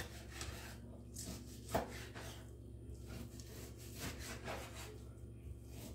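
Kitchen knife sawing through a piece of beef onto a wooden cutting board: a series of soft scraping strokes, with one sharper knock of the blade on the board a little under two seconds in.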